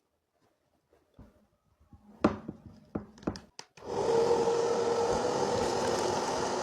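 A few sharp clicks and knocks of handling, then a vacuum cleaner switches on about four seconds in and runs steadily: a rush of air with a steady motor whine.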